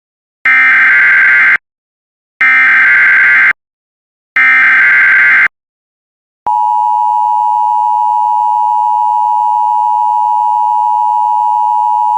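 Emergency Alert System SAME header: three loud bursts of screeching data tones, each about a second long with a second of silence between. About six and a half seconds in, the steady two-tone EAS attention signal begins and holds, heralding a tornado warning.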